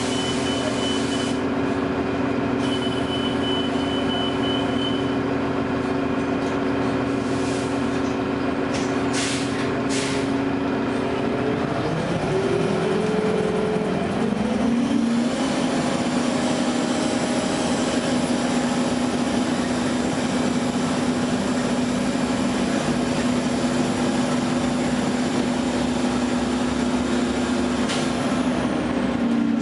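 2009 Gillig low-floor hybrid bus driveline (Cummins ISB diesel with Allison EP40 hybrid drive) running: a steady drone whose pitch rises about halfway through, holds at a higher note, then drops near the end. A few short hissing bursts come about eight to ten seconds in.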